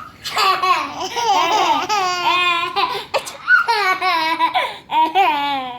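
Baby laughing in high-pitched, squealing peals, in two long runs with a short break about three seconds in.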